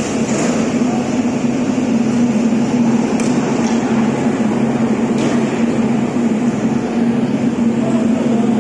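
Steady, loud mechanical hum with a constant low drone, unchanging throughout, from running machinery.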